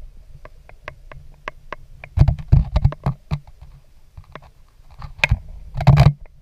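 Underwater sound picked up through a GoPro's waterproof housing: scattered sharp clicks and crackles, with louder low thuds and rumbling bursts about two to three seconds in and again near the end.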